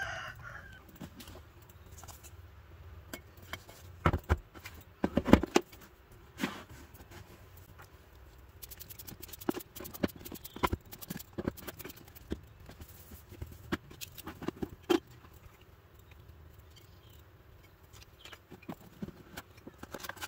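Handling noise: a scattered run of clicks, taps and knocks as cardboard phone boxes and a smartphone are picked up and set down on a table, with the loudest knocks about four and five seconds in.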